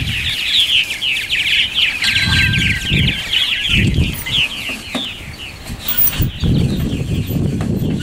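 A flock of purple martins chattering, many quick overlapping chirps and calls without pause. A low rumble comes and goes underneath.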